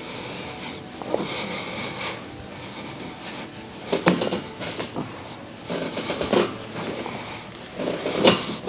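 Rustling and shifting of a child's body on a chiropractic treatment table, with a few short sharp sounds about four, six and eight seconds in.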